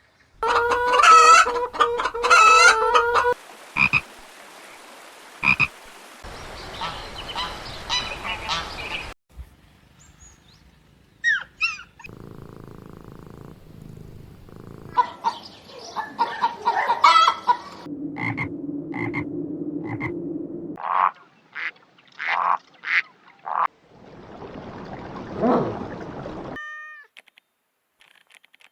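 Frogs calling and croaking in a run of short edited clips, each with a different call: pulsing, stacked-pitch croaks at first, then trains of short repeated notes.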